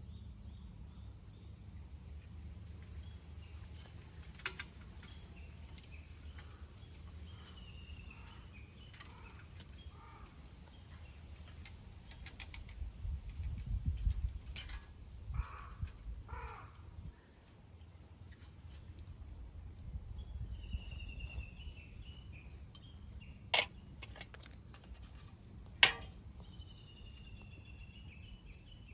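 Birds calling in short repeated chirping series, with a few sharp snaps and a stretch of low rumble about halfway through.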